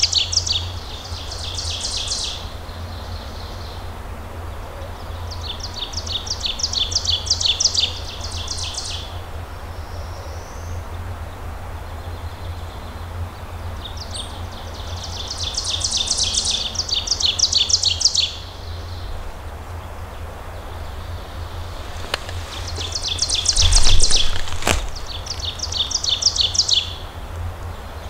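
A small songbird sings four times, about eight seconds apart: each song is a fast run of high, repeated notes that swells in loudness toward its end. One sharp click sounds near the end.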